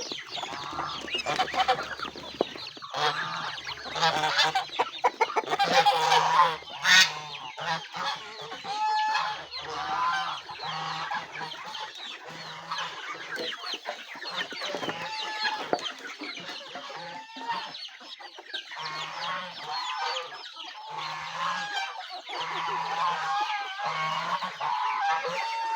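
A flock of chickens clucking and calling over one another without pause, with geese honking now and then among them.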